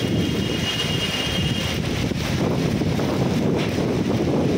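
Heavy rain pouring onto flooded pavement: a steady, dense hiss and patter with a deep rumble of wind on the microphone.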